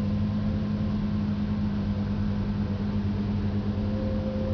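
2004 Lamborghini Gallardo's V10 engine idling steadily, heard from inside the cabin as a constant low hum.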